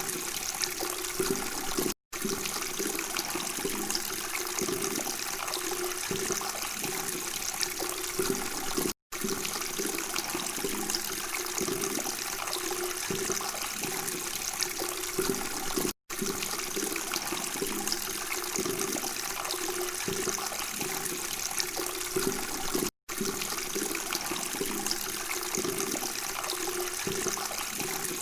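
Steady gurgling of flowing water, broken by a split-second silence about every seven seconds.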